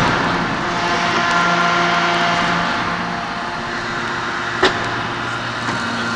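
A 2500-ton hot forging hydraulic press and its forging manipulator at work: a steady machinery drone with a few held tones, and one sharp knock about four and a half seconds in.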